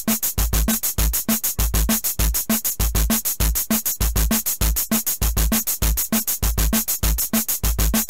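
Background music with a steady, fast beat.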